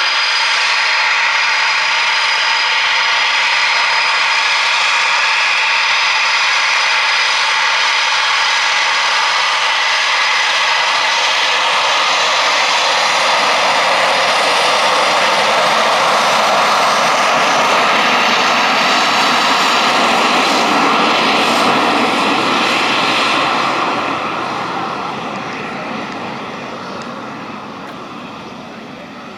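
Eurofighter Typhoon's twin EJ200 jet engines running close by: a steady loud roar with high whining tones, dying away over the last five seconds or so.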